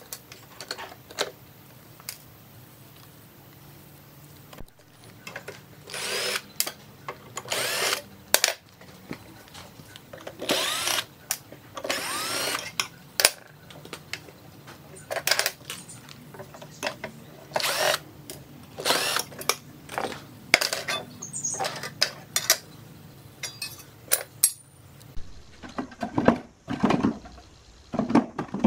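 A power screwdriver runs in about a dozen short bursts, each lasting about half a second to a second, backing screws out of a steel amplifier chassis. Near the end come lower knocks and rattles of the sheet-metal front panel being handled.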